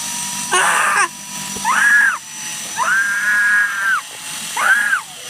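A person's voice gives a loud shouted 'Ah!', as in the build-up to a sneeze, then three drawn-out pitched calls that rise and fall, one longer than the others, over a steady hiss.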